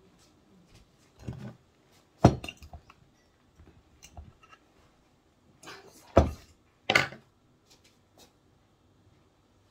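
Glass jar and dishes handled on a kitchen table: three sharp knocks, about two, six and seven seconds in, with quieter clinks and rattles between.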